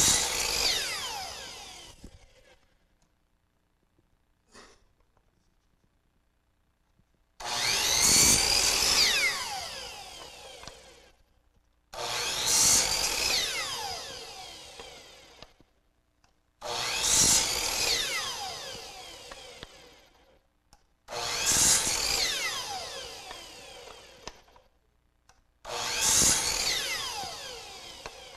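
Chop saw (miter saw) with an 80-tooth Freud blade making six cuts in a row, roughly every four and a half seconds. Each starts abruptly and its whine falls away as the blade spins down, while wedge-shaped segments are cut one after another for a segmented-bowl ring.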